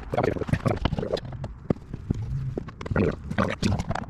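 Irregular knocks and clicks of hands working a plastic interior trim piece loose, several quick taps in a row.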